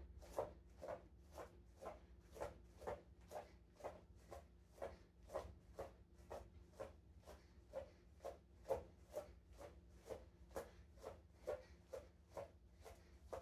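Bare feet landing on a yoga mat during high knees in place: soft footfalls in a steady rhythm, about two a second.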